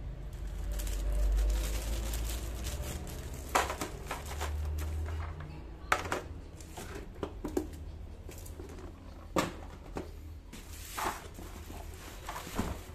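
Hands handling packaging: plastic wrapping rustling and a handful of scattered light knocks and clicks as parts are set into a plastic tray and a box is lifted from a cardboard carton, with a low rumble in the first couple of seconds.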